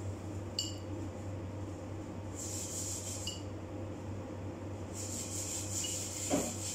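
Plastic-gloved hands rubbing and working a small glass seasoning jar: two hissy scraping spells, a small click about half a second in and a knock near the end, over a steady low hum.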